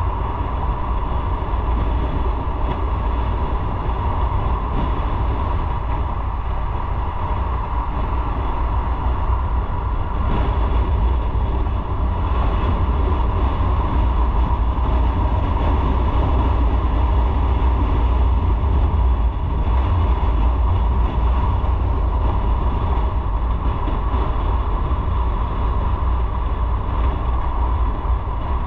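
Motorcycle riding at speed: loud, steady wind rumble on the microphone, with engine and road noise running under it.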